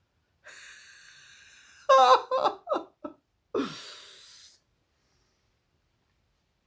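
A woman draws a long breath in, then laughs in a few short, loud bursts and lets out a breathy out-breath.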